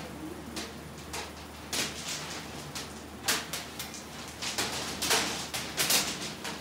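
Irregular clacks and knocks of hard candy and tools being handled on a candy-making work table, a few sharp hits among lighter ticks, over a steady low hum.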